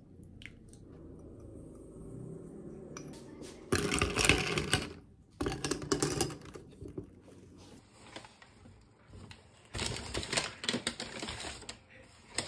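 Ice cubes clinking and rattling against the sides of a glass tumbler as an iced drink is stirred, in three bouts of rapid clatter.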